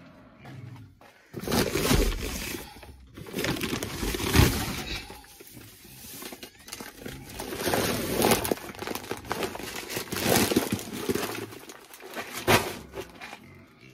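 Feed sacks being handled and unloaded into a wheelbarrow: irregular bursts of rustling with a few heavy thumps as sacks are set down.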